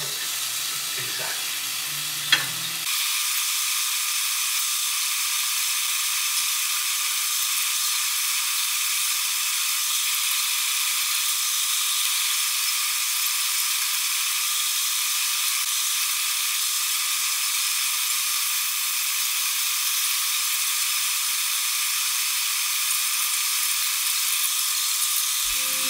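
Bratwurst sizzling as it fries in a pan, a steady even hiss, with one sharp click a couple of seconds in.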